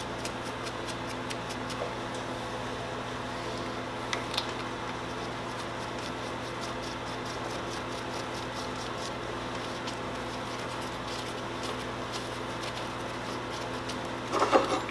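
Steady background hum of a small room, a fan-like drone, with a few faint small clicks about four seconds in as the chainsaw's clutch-cover nuts are put back on by hand.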